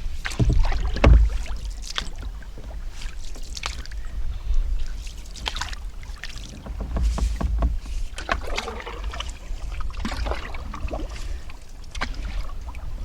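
Canoe being paddled: irregular paddle splashes and light knocks, over a steady low wind rumble on the microphone.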